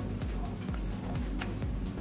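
Background electronic music with a steady beat, about four beats a second.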